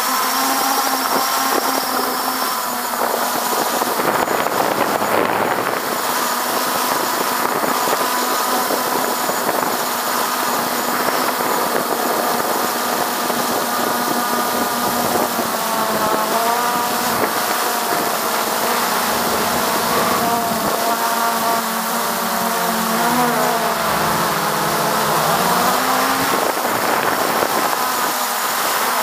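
Bugs 3 quadcopter's four brushless motors and propellers whirring in flight, heard from a camera mounted right beneath them. The whine holds steady, then slides up and down in pitch several times as the motor speeds change, most noticeably in the second half.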